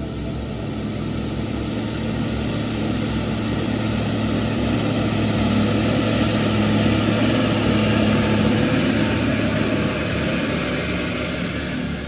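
Case MX120 tractor's 5.9-litre Cummins six-cylinder diesel pulling a four-furrow Kverneland plough under load. It grows louder as the tractor approaches, is loudest about two-thirds of the way through, then eases slightly as it passes.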